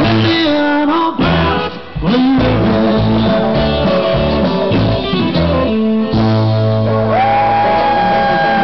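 A live band plays, with guitar and a singer. Near the end a long note is held.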